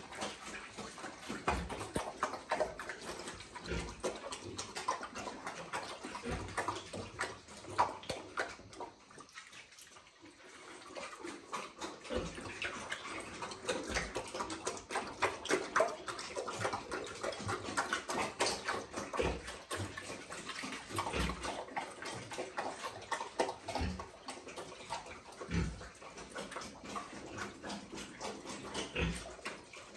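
A sow eating wet mash from a feed bowl: steady wet slurping, smacking and chewing, with occasional low knocks. The eating pauses briefly about a third of the way in.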